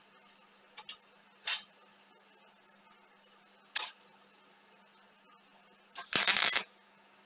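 Arc welder striking short tack welds on a steel frame: four brief bursts, the last one the longest and loudest at about half a second.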